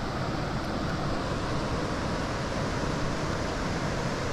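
Creek water rushing steadily over riffles, an even, unbroken wash of noise.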